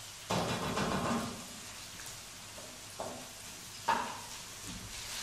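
Scrambled egg, chicken and vegetables sizzling in a hot pan while a wooden spatula stirs and scrapes them. There is a longer scraping stir about a third of a second in and two short scrapes about three and four seconds in.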